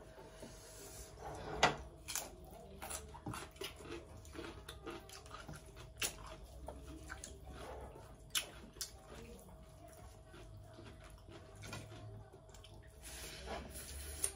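Eating sounds: wet chewing, lip smacks and the squish of fingers mixing rice and gravy, heard as scattered soft clicks over a faint steady hum.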